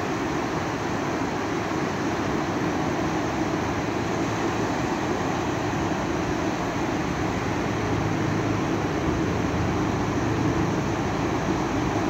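Ocean surf on a sandy beach: waves breaking offshore and shallow foam washing up the sand, a steady rushing noise.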